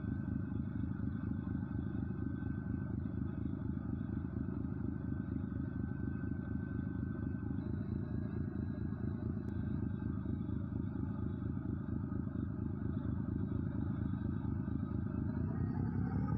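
An engine running steadily, with a low pulsing drone that rises in pitch and grows slightly louder near the end as it speeds up.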